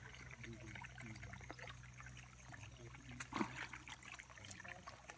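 Water trickling steadily from a small tube-well pipe into a muddy puddle, a faint, even splash. The groundwater rises mixed with natural gas, which is burning at the pipe's mouth. A single short knock sounds about three seconds in.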